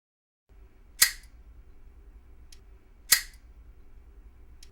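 Two loud, sharp snaps about two seconds apart, each followed by a brief ring, with a faint click between them, over a steady low hum.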